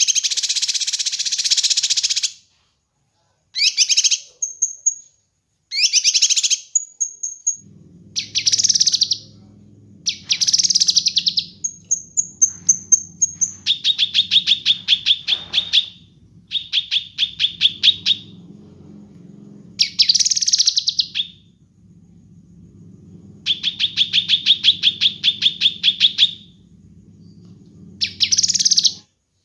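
Kinoi bird singing in repeated short bursts of rapid, high chirping trills, each burst lasting one to three seconds with brief pauses between, a few with thin high whistled notes. A faint low hum runs underneath from about a quarter of the way in.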